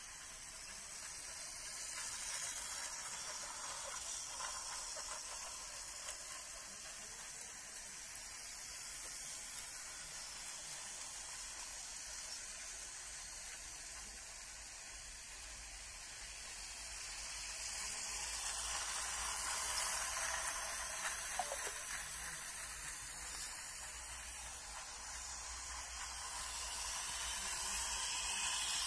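Model train running on its track out of view: a steady whirring hiss of motor and wheels that swells and fades as it goes round the layout, growing louder near the end as it approaches.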